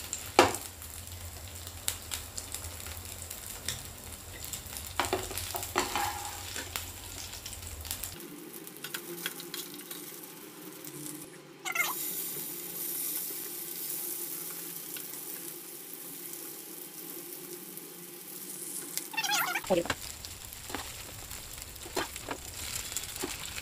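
Masala-marinated chicken pieces sizzling as they fry in hot oil in a nonstick frying pan, with a slotted spoon knocking and stirring in the pan. About halfway through, fresh pieces dropped into the oil set off a louder sizzle.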